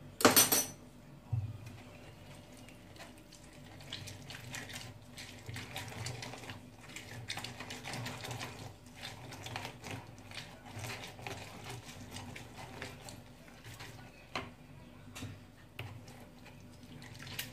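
A lemon being cut through with a knife, a sharp cut at the very start, then lemon halves twisted back and forth on a plastic hand citrus reamer: a steady run of rubbing, squishing strokes as the juice is pressed out.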